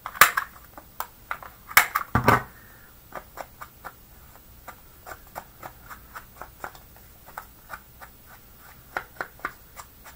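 A corner-rounder punch clicking sharply through the corners of a cardstock card a few times, then a handheld paper distressing tool scraping the card's edges in a long run of short, quick strokes.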